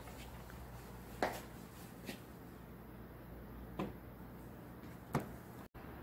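Quiet room tone with four faint, short taps spread out, and the sound cuts out for an instant near the end.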